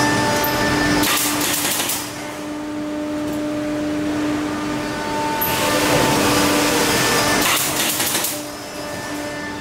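Pneumatic nail gun firing in quick bursts of sharp clacks as slats are fastened into a wooden furniture frame, once about a second in and again near the end, over steady background music.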